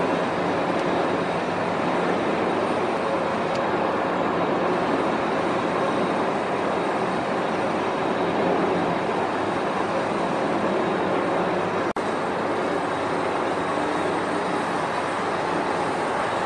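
Boeing 747-400 freighter's four jet engines running at taxi power, a steady, even rush of engine noise.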